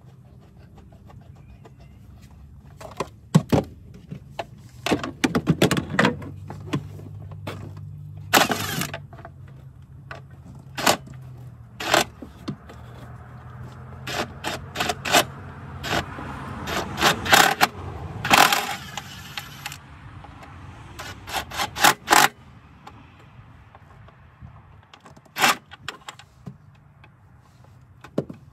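Scattered sharp clicks and clatter of metal and plastic engine parts being handled and fitted by hand in an engine bay during reassembly. A low steady hum runs underneath through the first half.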